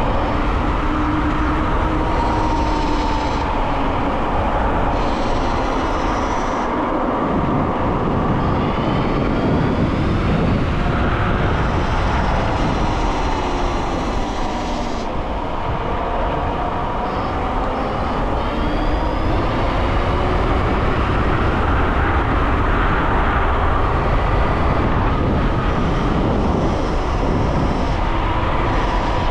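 Dualtron X Limited electric scooter riding at speed: heavy wind and road rumble on the microphone, with the hub motors' thin whine gliding up and down in pitch as the speed changes.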